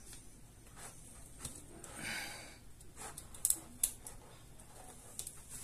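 Handling and prying at the edge of a laptop LCD panel: a soft breathy exhale about two seconds in, then two sharp plastic clicks close together as the panel's frame is worked loose.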